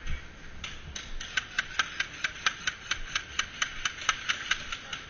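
Airsoft gun firing a rapid string of single shots, about four to five sharp cracks a second.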